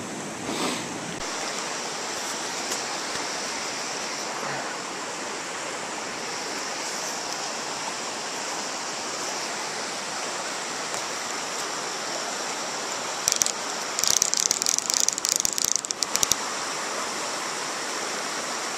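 Steady rush of river current over a rocky run. About 13 seconds in, a fly reel's click-pawl drag gives a brief buzz, then ratchets rapidly for about two seconds as line is pulled off the reel.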